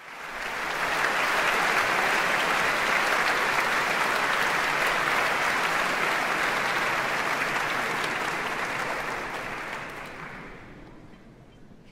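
Concert audience applauding, steady and dense, then dying away about ten seconds in.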